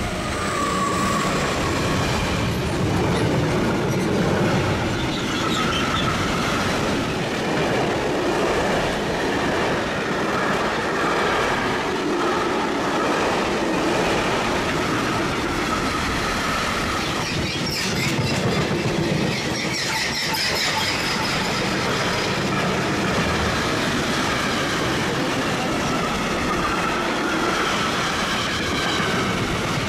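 A train passing close by, its wheels clattering over the rails with a thin metallic wheel squeal running through it. The sound swells up at the start and then holds steady.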